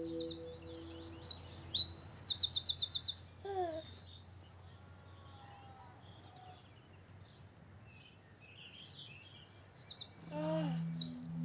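Birdsong of bright chirps and fast high trills, loud for the first three seconds, then faint, building again near the end. A few low held tones fade out about a second in and return near the end.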